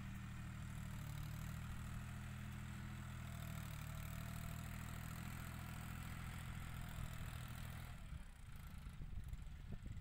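John Deere 5045 tractor's diesel engine running steadily as it pulls a soil-pushing implement across a field, heard from a distance. About eight seconds in, the even engine note breaks up into an uneven low rumble.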